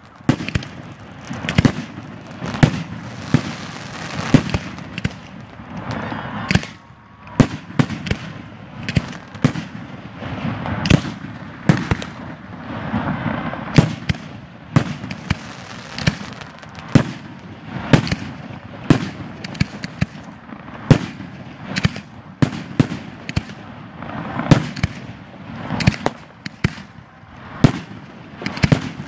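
Fireworks display: aerial shells bursting in quick succession, with a loud bang about once a second, smaller pops between, and crackling in the gaps.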